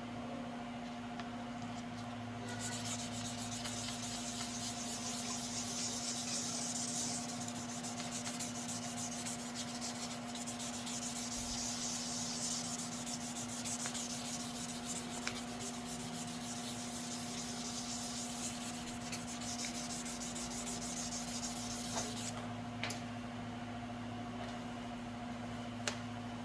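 Hand sanding: abrasive paper rubbed back and forth over a panel as surface preparation for spray painting. It starts a couple of seconds in and stops near the end, over a steady low hum.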